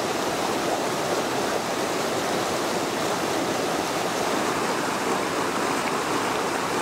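Creek water rushing: a steady, even rush of flowing water with no let-up.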